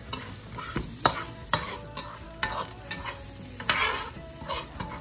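A spatula scraping and tapping across a nonstick frying pan, about two strokes a second, as chopped onions are stirred. Under it the onions sizzle steadily as they fry down and brown.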